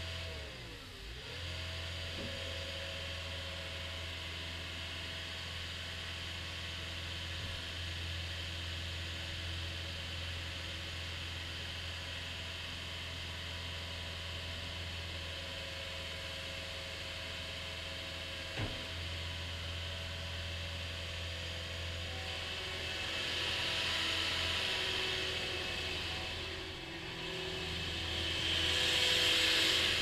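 CAT 242D skid steer loader's diesel engine running steadily as the machine drives and works its bucket, growing louder twice in the last ten seconds as it is pushed harder.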